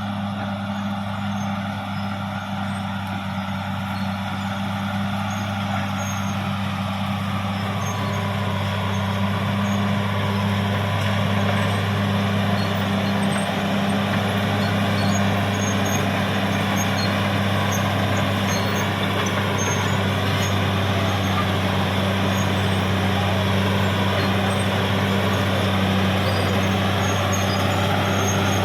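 Caterpillar D6R XL bulldozer's diesel engine working, a steady low drone that grows gradually louder.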